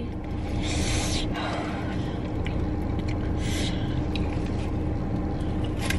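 Steady low hum in a car cabin with a held drone throughout. Two short hissing breaths come through it, about a second in and again a little past halfway, while spicy chips are being eaten.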